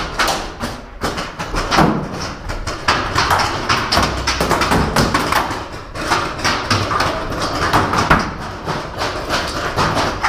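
Many paintball markers firing at once: a dense, irregular run of sharp pops and knocks, with paintballs smacking against the tower.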